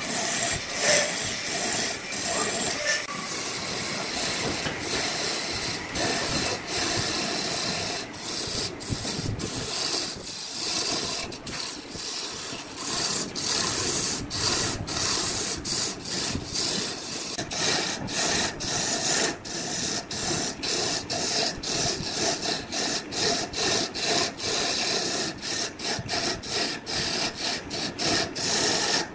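A hand-held turning tool cutting into a spinning wooden vase blank on a wood lathe: a continuous scraping, hissing cut broken by many short gaps where the tool leaves the wood, the gaps coming more often in the second half.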